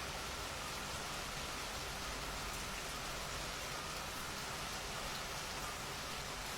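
Steady rainfall, an even hiss of rain falling on surfaces, with no change in intensity.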